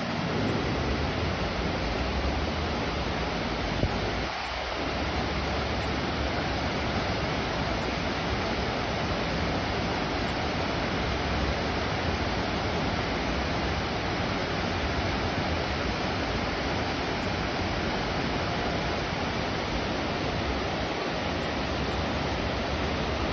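Muddy floodwater rushing as a torrent, a steady, unbroken rush of water.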